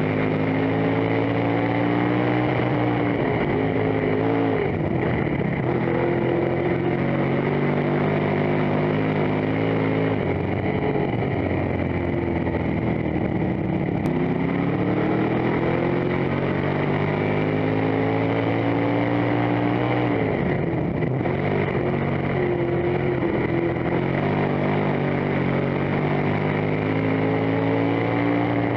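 Dirt-track race car engine heard from inside the cockpit, running hard at a steady, loud level. Its pitch climbs for several seconds at a time, then drops off about every eight seconds as the car comes off the throttle for the turns.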